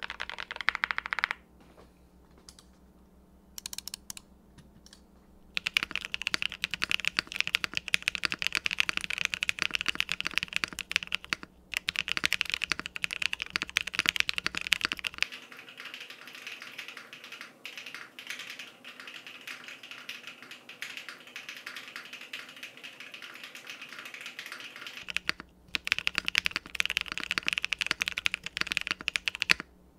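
Fast continuous typing on a TKD Cycle 8 tenkeyless mechanical keyboard with Epomaker Jade Blossom switches and PBT keycaps, built with no foams on an o-ring gasket mount. The keystrokes come as dense sharp clacks, with only a few scattered presses for several seconds near the start and a brief break near the end.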